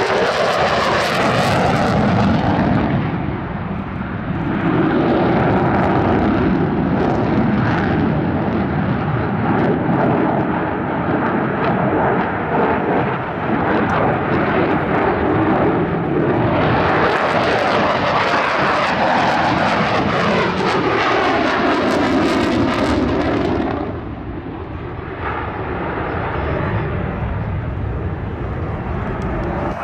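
F-16 Fighting Falcon's single jet engine rumbling as the fighter flies its demonstration routine. The noise swells with a sharper, hissing edge about two-thirds through as the jet passes close, then eases off over the last few seconds.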